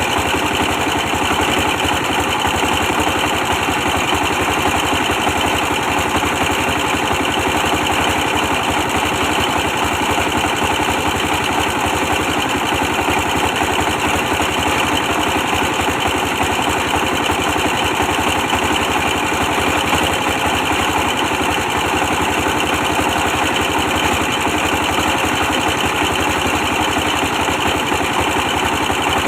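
An old 24 hp stationary diesel engine running steadily at a constant speed, its firing even and unbroken.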